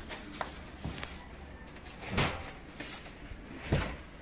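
A few dull knocks and bumps of a heavy laminated table top being set and shifted into place on a modular workstation frame, the loudest about two seconds in.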